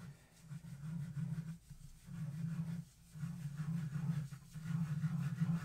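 A pen scratching across paper as ellipses are sketched in quick, repeated strokes, in several runs with short gaps between them.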